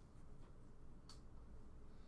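Near-silent room tone with one light, sharp tick about a second in, a pen tip touching down on sketchbook paper between strokes.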